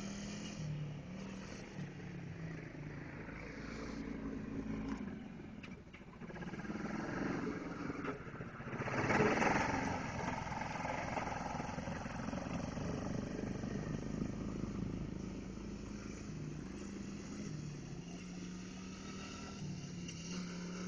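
ATV engines running and changing speed as the four-wheelers are ridden. The engine note steps up and down, and the sound swells to its loudest about nine seconds in.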